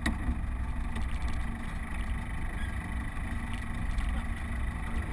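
Land Rover Defender engine running with a steady low rumble as the vehicle moves slowly along a rough track, with a few light knocks.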